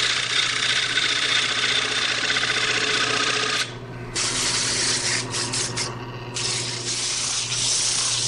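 A bowl gouge cuts into the inside of a spinning oak platter on a wood lathe, a steady scraping hiss over the lathe motor's low hum. The cut breaks off a little over three and a half seconds in, comes back in a few short strokes, and then gives way to steady rubbing as a hand sands the spinning wood.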